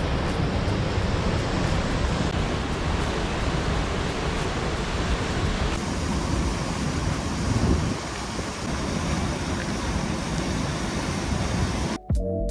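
Rain-swollen creek water rushing over a cascade: a steady, even rush with some wind on the microphone. Music cuts in near the end.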